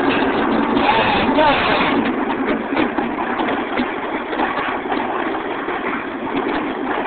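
Two EMD GP35 diesel locomotives, with turbocharged 16-cylinder engines, running hard as they pass close by, followed by the freight cars rolling past with a rapid clicking of wheels over the rail.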